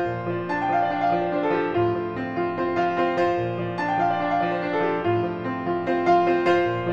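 Piano music: a steady flow of struck notes, a melody over held chords.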